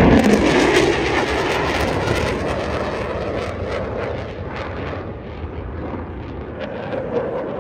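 Fighter jet engine noise as the jet flies past and climbs away: a loud, rough, crackling jet roar that fades gradually over the seconds.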